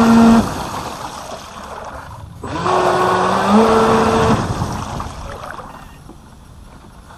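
Water-cooled brushless inrunner motor of an RC jet ski whining as it drives the water-jet pump, with water rushing past, heard from on board. A short full-throttle burst comes at the start, then a second burst from about two and a half seconds in whose pitch steps up partway, before the throttle eases off and the motor fades.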